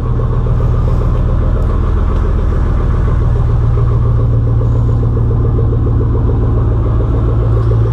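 Exhaust of a 2004 Chevrolet Silverado's 5.3-litre LM7 V8 idling steadily through stock manifolds and catalytic converters into a 3-inch single straight pipe with no muffler: a deep, even idle.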